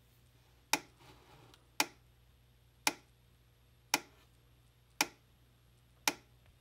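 Gallagher M800 8-joule electric fence energizer pulsing on test, a sharp click about once a second, six clicks in all.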